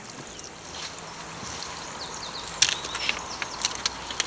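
Water trickling steadily from a small spring in a rocky channel, with short chirps and a few sharp clicks over it in the second half.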